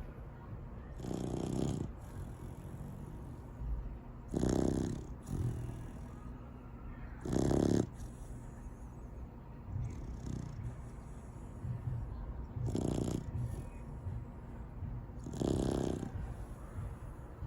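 Seven-month-old Labrador Retriever puppy snoring in its sleep: about five heavy snores a few seconds apart, with fainter snoring breaths between them.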